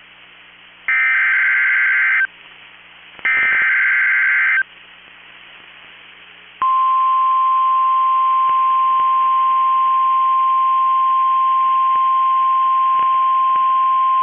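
NOAA Weather Radio Emergency Alert System signal: two short bursts of SAME digital header data tones, each about a second and a half. Then, about six and a half seconds in, the single steady 1050-hertz warning alarm tone starts and holds, marking the start of a new warning broadcast.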